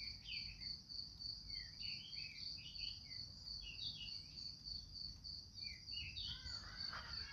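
Faint cricket chirping in a steady, rapid high-pitched pulse, with birds calling over it in short chirps that grow busier near the end.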